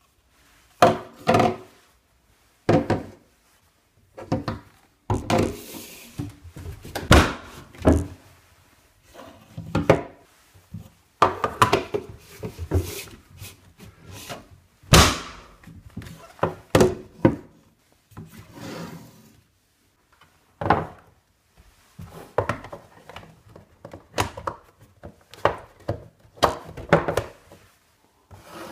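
Hollow moulded plastic parts of a Little Tikes giraffe scooter knocking and scraping against each other and the tabletop as they are fitted together, a wheel pushed onto its axle arm and the seat set onto the frame. The thunks come irregularly, in clusters, with short pauses between.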